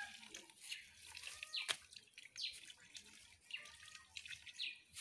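Faint water dripping and trickling around the exposed supply pipe, with scattered small ticks and one sharp click about two seconds in.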